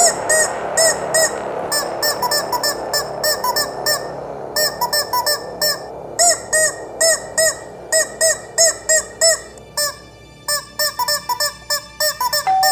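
Rubber chicken squeeze toys squawking in rapid runs of short squeaky honks, several a second with brief pauses, standing in for the puppets' dialogue.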